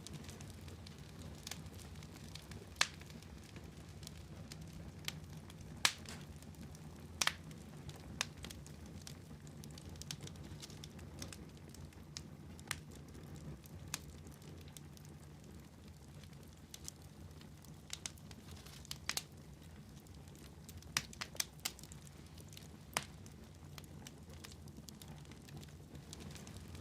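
Wood fire crackling in a fireplace: irregular sharp pops and snaps, a few louder ones scattered through, over a steady low rumble.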